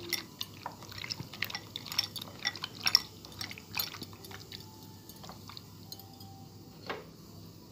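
Raw liver and kidney pieces squished by hand in a wet spice paste in a glass bowl: wet squelches and light clicks. They come thick and fast for about four seconds, then thin out, with one last one near the end.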